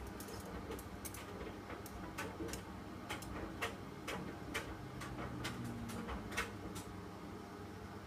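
Hoover WDYN 11746 PG8 washer-dryer on a low-temperature drying cycle, its drum tumbling a load of shirts and sweaters: a steady low motor-and-fan hum with light, irregular clicks about one or two a second as the load turns and drops, the clicks dying away near the end.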